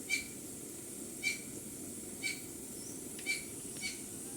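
A small bird chirping in short high calls, five in all, about once a second, over a low steady rush from a pot of liquid simmering on the stove.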